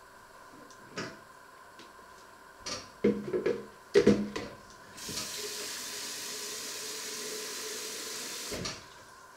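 A few knocks and clatters at a stainless steel sink, then a kitchen tap running into a plastic measuring jug for about three and a half seconds before it cuts off.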